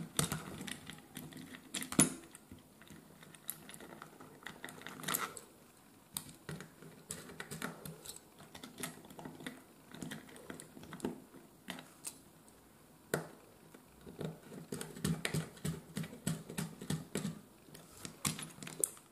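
Small screwdriver working the brass screw terminals of a plastic extension board as wires are fixed in place: irregular light clicks and scrapes, the loudest about two seconds in, with a denser run of quick clicks near the end.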